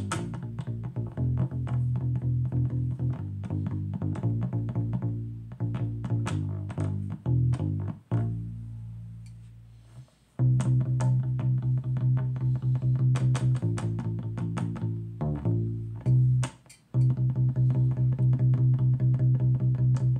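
Aklot U-Bass (ukulele bass) being plucked, playing a steady run of low notes. A little past eight seconds in, one note is left to ring and die away for about two seconds before the playing starts again.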